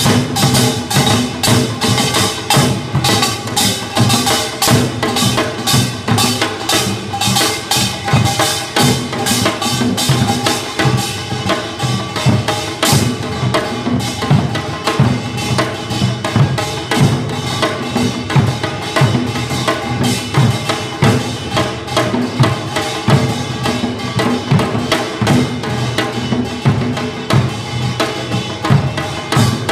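Korean traditional percussion ensemble playing a fast, driving rhythm: a janggu hourglass drum and buk barrel drums struck with sticks, several strikes a second, with sharp clacking hits.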